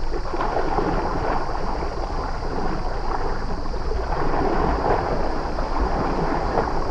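Water splashing and sloshing as an African elephant wades through shallow floodplain water, over a steady low rumble.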